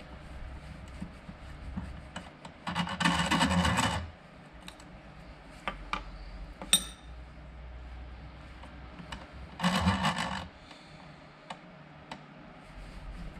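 Old brake-lining rivets being pressed out of a brake pad's backing plate with a screw-type rivet tool held in a bench vise: two loud scraping grinds, one a few seconds in and one about two thirds through, each lasting about a second. Between them comes one sharp metallic clink, with small clicks and rubbing of metal parts being handled.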